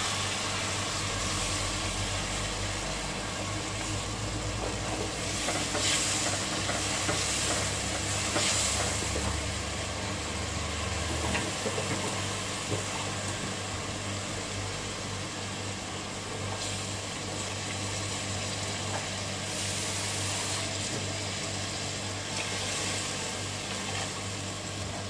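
Onion, spice and tomato masala sizzling and bubbling steadily as it fries on a high flame in an aluminium pot, with the swish and scrape of a slotted spoon stirring it now and then.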